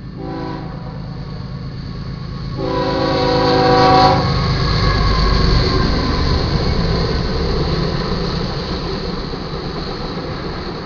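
BNSF GE ES44AC diesel locomotive sounding its air horn, a short blast and then a long one that ends about four seconds in. The locomotive then passes loudly, followed by tank cars rolling past.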